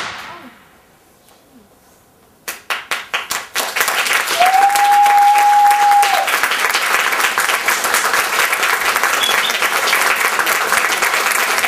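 Audience applause: the echo of a stage gunshot dies away, then a few scattered claps start about two and a half seconds in and build within a second into full, steady clapping. One long whistle from the audience rises out of it for a couple of seconds.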